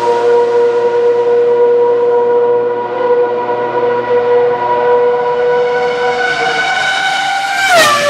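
A Ferrari Formula One car's high-revving engine drawing away down the straight, holding a steady high note with a slight dip about six seconds in. Near the end a second Ferrari F1 car screams past close by, its pitch dropping sharply as it goes by.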